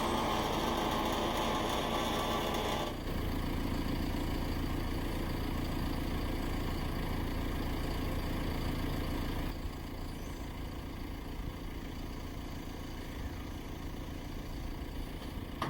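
Engine of a front-end loader running while it lifts and moves its bucket. It is louder for about the first three seconds, runs steadily after that, and drops back a little about nine and a half seconds in.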